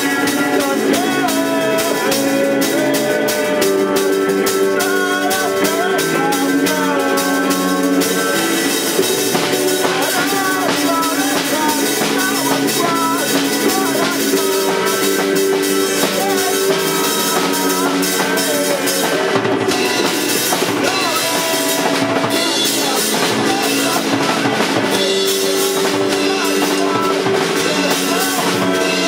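Band playing an instrumental song with no vocals: a drum kit keeps a steady beat on bass drum and snare under held chords and a wavering melodic line.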